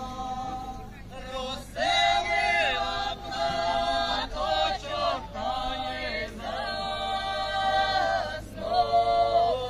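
A group of voices singing a Ukrainian folk song a cappella in harmony: long held notes in phrases, with short breaks between them.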